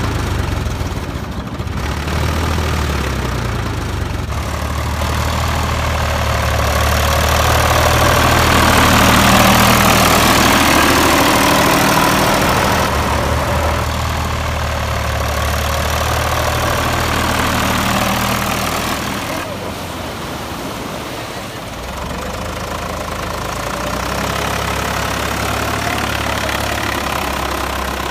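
Same 603 4WD tractor's three-cylinder diesel engine running while pushing a fishing boat and driving on sand, its engine speed stepping up and down several times and louder through the middle stretch.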